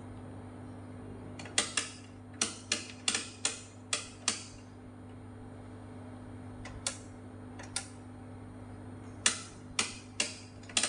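Rotary selector switch of an analogue oscilloscope clicking through its detents as the knob is turned: eight sharp clicks in about three seconds, two more a few seconds later, then a quick run of four near the end. A steady low hum runs underneath.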